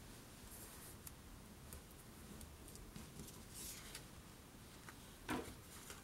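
Faint handling of paper and card: light rustles and small ticks as a paper lace strip is pressed down and worked along the card's edge, with one sharper click about five seconds in.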